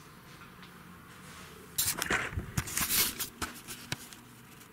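Handling noise: a cluster of rustles and light knocks lasting about a second and a half, starting about two seconds in, then a few scattered clicks.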